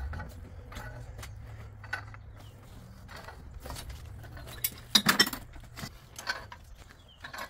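Black steel gas pipe and fittings being handled in a tripod pipe vise: scattered metal clinks and scrapes, with a louder clatter about five seconds in. A low steady hum runs underneath and fades about then.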